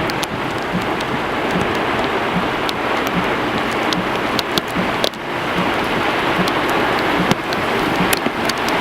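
Heavy tropical-storm rain: a steady, dense hiss, with scattered sharp ticks of drops striking close by and a brief dip about five seconds in.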